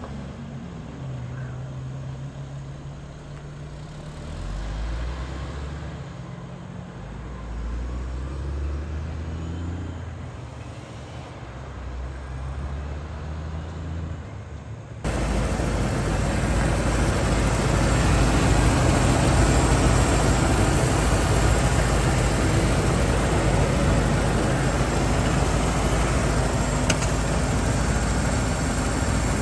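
Trucks driving off and passing on a road, their engine note stepping up and down as they pull away. About halfway through, a sudden switch to the 1997 Ford F-350's 351 V8 running steadily and louder, heard close up with the hood open.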